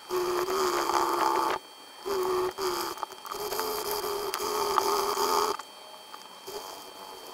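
An epoxy-encased inductor being rubbed by hand on 220-grit sandpaper: a scratchy rasping in three stretches with short pauses, stopping about two seconds before the end.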